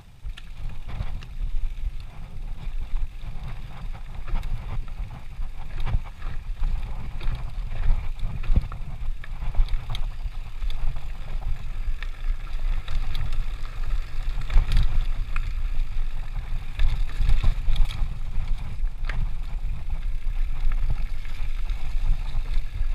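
Mountain bike rolling fast down a rough dirt singletrack: wind buffeting the handlebar-mounted camera's microphone as a steady low rumble, with frequent clicks and knocks from the bike rattling over the bumps.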